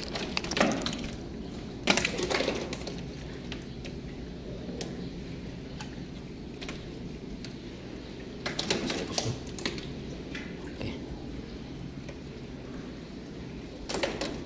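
A few brief bursts of rustling and knocking from handling close to a body-worn camera, over a steady low hum.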